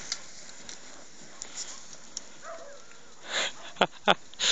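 Handling noise from a fallen enduro motorcycle held on a steep slope of crumbly tuff: light scuffing, two sharp knocks a little under four seconds in, and short hissing breaths or scrapes just before and after them.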